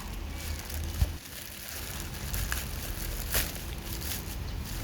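Handling noise from unboxing a package: faint crackly rustling with a sharp click about a second in and another a little past three seconds, over a steady low hum.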